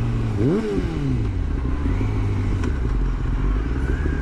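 Yamaha YZF-R6S inline-four motorcycle engine through a Two Brothers full exhaust: a quick rev about half a second in, the pitch jumping up and falling straight back, then running at steady low revs.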